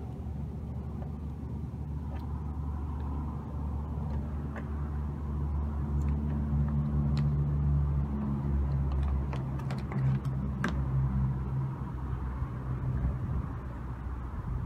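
A motor vehicle engine running in the background, a steady low hum that grows louder through the middle and eases off, with a few light clicks from the plastic bumper grille being fitted into the bumper cover by hand.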